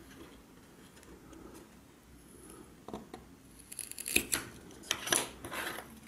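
Fibreglass circuit boards being handled and snapped apart by hand along their break lines: a quiet start, then from about three seconds in a run of sharp clicks and cracks with scraping between them, the loudest about four and five seconds in.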